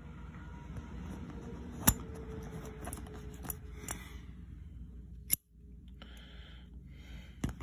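Handcuff ratchet clicking as an improvised key bent from a staple is worked in the keyhole to open the single-locked cuff: a few sharp metal clicks and small ticks over a steady low hum.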